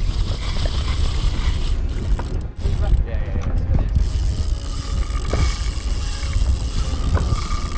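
Large saltwater spinning reel working under load against a hooked roosterfish: mechanical clicking and gear noise, with a thin steady whine from about five seconds in, over a steady low rumble of wind and sea.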